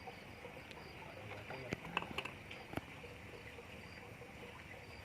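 Night insects chirping steadily, a short high chirp repeating evenly, with a few sharp clicks and knocks about two seconds in.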